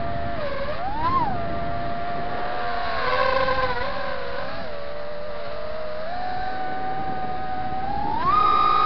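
FPV drone's electric motors and propellers whining, recorded on board; the pitch falls and rises with the throttle, with a quick swell about a second in and a sharp rise to a higher, steady whine near the end.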